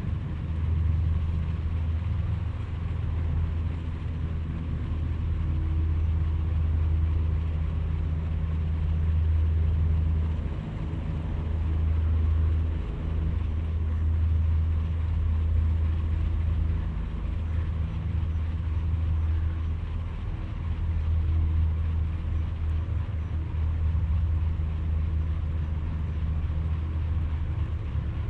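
An engine running steadily at low revs, a deep hum that swells and dips slightly.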